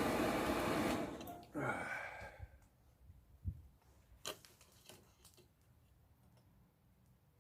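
Steady rushing noise of a running forge that cuts off abruptly about a second in. A brief sweeping sound with a falling pitch follows, then a few scattered clicks and metal knocks.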